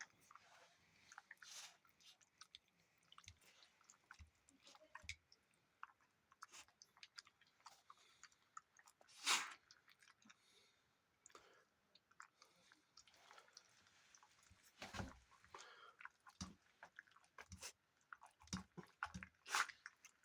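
A toothless dog eating soft porridge: faint, irregular wet smacks and clicks of chewing and mouthing, with a few louder smacks along the way.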